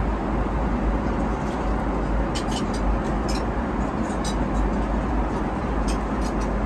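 Steady airliner cabin noise of a Boeing 777-300ER in cruise: an even rush of air and engine drone, heaviest in the low end. A few light clicks and clinks come from about two seconds in.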